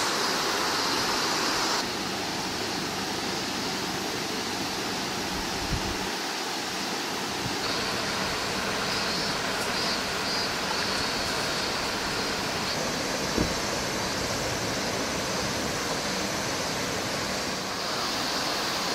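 Shallow river running over rocks in a riffle: a steady rush of water. Its level shifts slightly a couple of times, and there is one faint tap a little past halfway.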